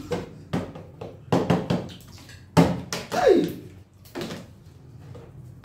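A part-filled plastic water bottle knocking and thudding against a wooden table as it is flipped, several knocks in the first three seconds, with a brief falling tone about three seconds in.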